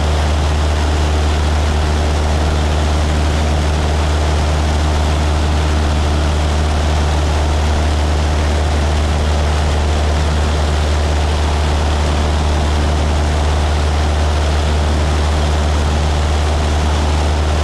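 Light propeller airplane's engine and propeller droning steadily in flight, heard from inside the cabin: a strong, even low hum with a steady rush of air noise above it.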